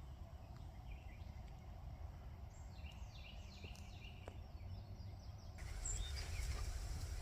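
Outdoor ambience: a steady low rumble with a bird singing a quick series of short falling chirps a few seconds in. About five and a half seconds in, the background hiss gets louder.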